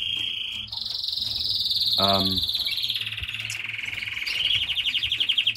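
A canary singing one long, unbroken song of rapid trills. It steps up in pitch less than a second in, drifts lower, and brightens again near the end.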